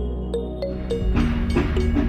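Background music: short plucked notes on a regular beat over a steady bass, growing fuller about a second in.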